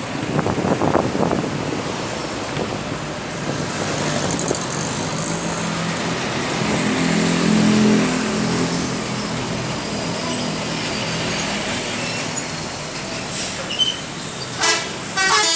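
Passing road traffic, with a heavy vehicle's engine swelling and fading about halfway through. Near the end a bus's multi-tone 'telolet' horn starts playing its stepping tune.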